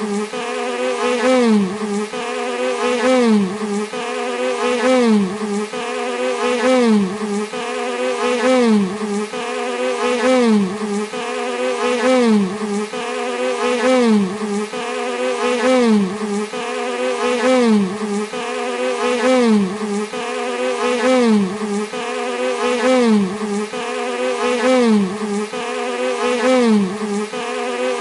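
A bee buzzing continuously, its pitch dipping and rising again about once a second in a regular, repeating pattern.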